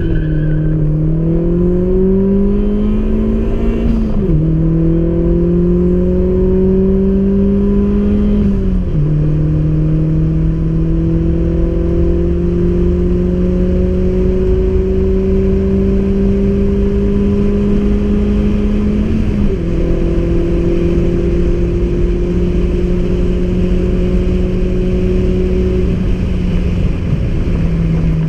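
270 hp Opel Astra Bertone coupé accelerating hard, heard from inside the cabin: the engine note climbs steadily through each gear and drops at each upshift, near the start, about four seconds in, about nine seconds in and about nineteen seconds in, each gear pulling longer than the last.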